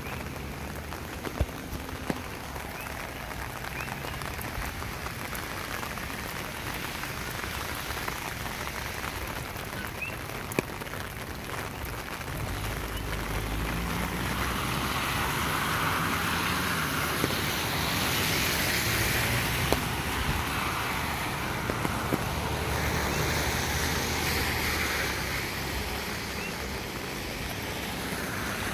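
Steady rain falling on pavement, with a few sharp drops ticking close by. From about twelve seconds in, traffic on the wet road swells up and passes, tyres hissing through the water over a low engine rumble, then fades near the end.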